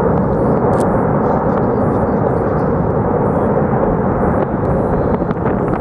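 Lava fountain jetting from a volcanic vent: a loud, steady rushing noise, with a few faint sharp crackles over it.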